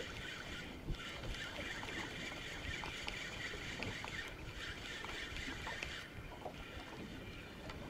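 Steady hiss of a fishing boat on the water, with a few faint small knocks and clicks.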